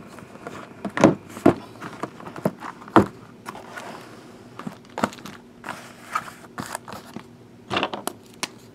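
Shrink-wrapped cardboard hobby boxes being handled and restacked on a table: irregular knocks and taps as the boxes are set down against each other, with some rustle of the plastic wrap.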